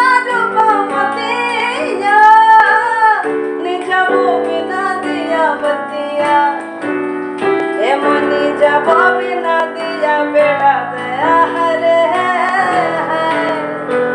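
A woman singing a folk-fusion song with gliding, ornamented pitch, accompanied by keyboard chords.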